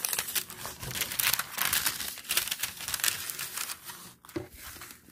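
Parchment paper laid over a diamond painting canvas crinkling and rustling as it is lifted and handled, dying down about four seconds in.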